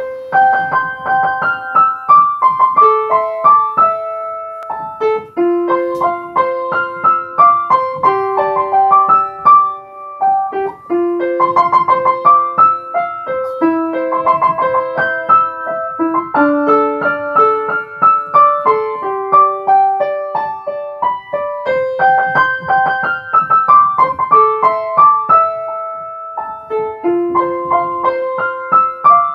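Upright piano playing a melody with chords high on the keyboard, the notes ringing into one another.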